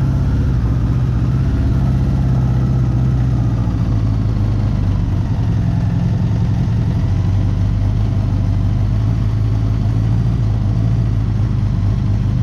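Honda Gold Wing GL1000's liquid-cooled flat-four engine idling steadily on choke, still cold and warming up towards operating temperature.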